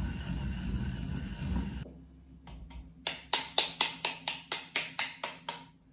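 Sesame seeds being ground in a ceramic suribachi with the tip of a wooden rolling pin, a steady rough grinding for about two seconds. It stops, and about a second later a quick run of about a dozen sharp taps follows, about four a second.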